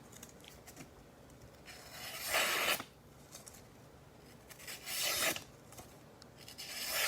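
Test cuts with a freshly sharpened Benchmade Mini Griptilian knife: three separate rasping slicing strokes, each under a second, that grow louder through each stroke and stop sharply.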